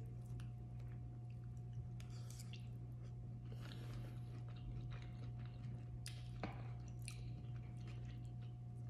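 Close chewing of a mouthful of rice bowl with chicken, with a few short clicks of a fork against the bowl, over a steady low hum.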